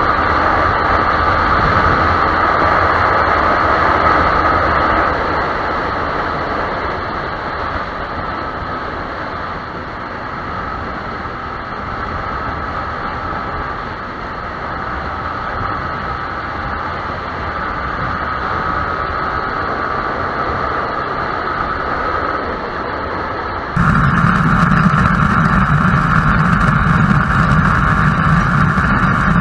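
Yamaha YZF-R15 motorcycle engine running with road and wind noise. The sound changes abruptly about three-quarters of the way through, becoming louder with a stronger low hum.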